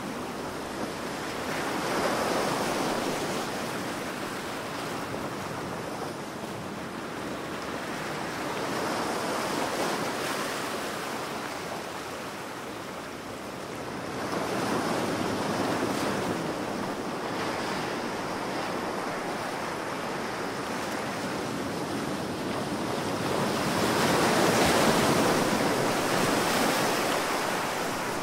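Ocean surf, waves breaking and washing in: a continuous rush of water that rises and falls in four swells, the loudest near the end.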